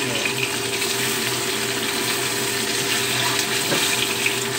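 Tofu blocks deep-frying in hot oil in a cast iron wok: a steady, even sizzle.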